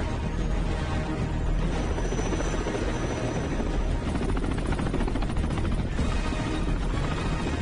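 Helicopter rotor and engine noise, loud and continuous, mixed with a tense orchestral film score.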